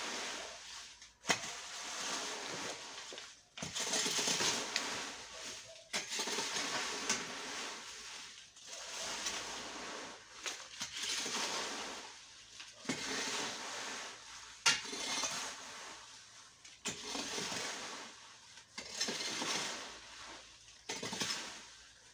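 A rake dragged through dry fallen leaves, about a dozen rustling, scraping strokes one every second or two, with an occasional sharp tap.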